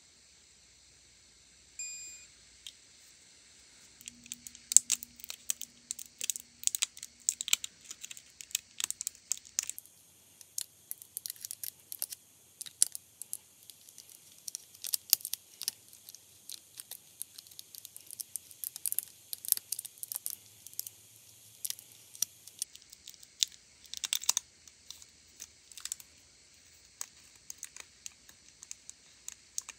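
Close, irregular crackling and clicking of a thin plastic nail-art film sheet being handled and pressed firmly onto a fake nail tip, with long fingernails tapping against it. It starts about four seconds in and runs as a dense patter of small clicks, with a brief lull near the end.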